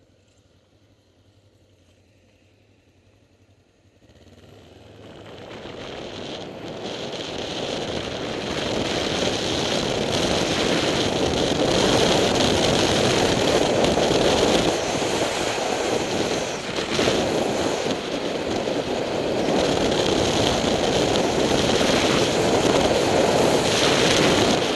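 Near silence for the first few seconds while the Honda CB500 motorcycle stands at a red light, then the wind rushing over the bike-mounted camera's microphone as the motorcycle pulls away and gathers speed. It swells over several seconds into a loud, steady rush, with the engine and road noise blended underneath.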